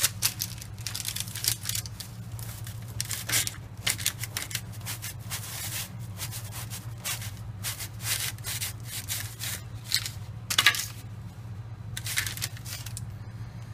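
Knife sawing back and forth through a baked bun, a run of short, irregular scraping strokes with paper rustling, the loudest stroke just past ten seconds in. A steady low hum runs underneath.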